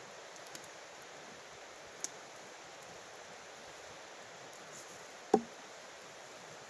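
A steady faint hiss with a light click about two seconds in and one sharp knock about five seconds in.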